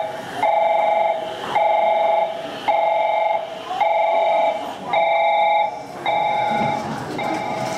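An electronic two-note signal on the station platform beeping on and off about once a second, eight times, softer near the end, over the low rumble of a JR Central 313 series electric train pulling in.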